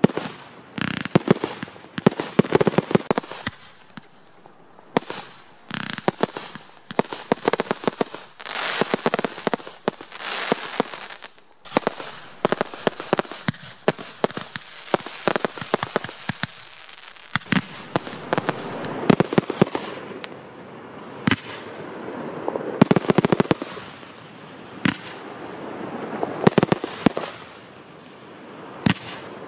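Fireworks display: a continuous barrage of sharp bangs and crackling as shells are launched and burst, coming irregularly, often several a second, with short lulls.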